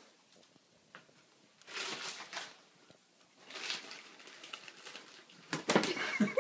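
Fabric pop-up play tunnel rustling and crinkling in three bursts as it is moved about, the last and loudest near the end.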